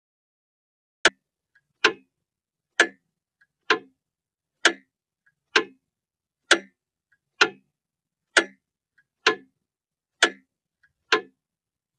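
A clock ticking steadily, about one tick every 0.9 seconds, twelve ticks starting about a second in, with a much fainter click between some of them.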